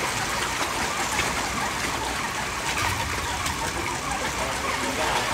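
Steady splashing and churning of pond water as a dense crowd of fish jostles at the surface to feed.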